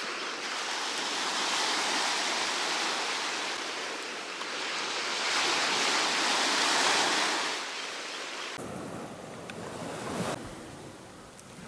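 Sea surf breaking on a beach, washing in and swelling twice, with some wind on the microphone; the sound changes abruptly to a quieter surge about two-thirds of the way through.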